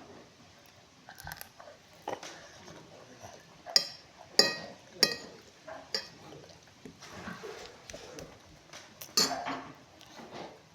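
Eating utensils clinking against dishes: a string of irregular sharp clinks, several of them ringing briefly, with the loudest a little under halfway through and again near the end.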